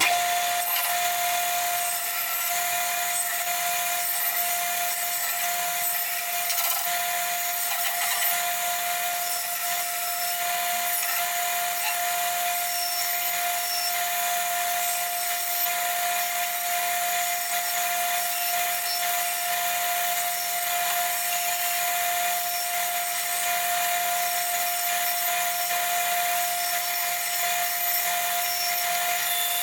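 A power tool running steadily, with a constant whine over a grinding hiss. It starts abruptly and holds an even speed.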